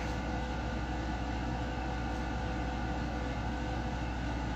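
Steady indoor room tone: a low electrical-sounding hum with faint even hiss, unchanging throughout.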